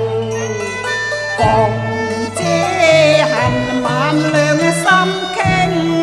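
Cantonese opera ensemble playing, a bowed two-string Chinese fiddle carrying the melody over a stepping bass line.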